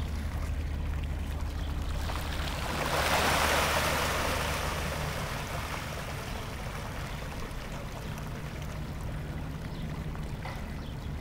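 A crowd of large fish splashing and churning at the water's surface in a feeding frenzy after food is thrown in. The splashing swells about two seconds in and dies down after about six seconds, over a steady low hum.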